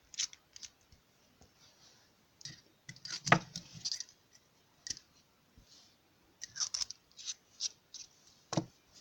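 A tactical pen being screwed back together and handled: scraping of the threads with scattered clicks and light knocks. The sharpest click comes about three seconds in, and another knock near the end.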